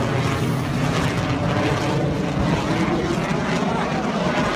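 Fighter jet making a low pass: a loud, steady rush of jet engine noise.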